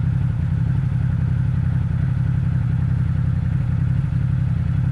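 Side-by-side UTV engine idling steadily.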